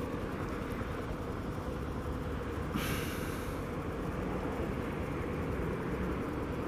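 Road traffic passing on a city street: a steady low rumble, with a brief hiss about three seconds in as a car goes by.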